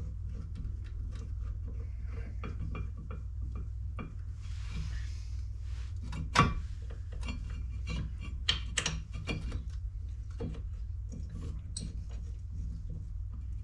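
Metal clinks, taps and knocks of tools and brake parts being handled while a brake caliper bracket is refitted, with one sharp metal clank about six and a half seconds in and a few more a couple of seconds later, over a steady low hum.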